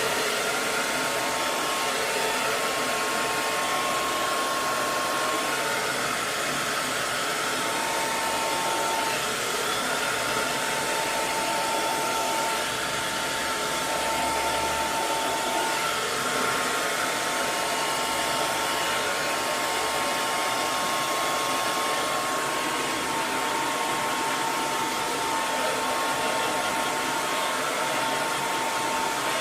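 Electric hair dryer running continuously: a steady rush of blown air with a faint motor whine.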